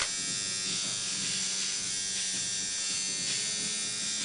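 Steady electrical buzz made of many tones at once, from a machine running in a small room. A brief sharp click sounds right at the start.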